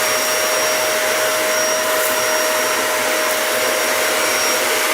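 Dyson Animal 3 vacuum cleaner running steadily while vacuuming flour off a thin carpet: a loud, even rush of air with a constant whine through it.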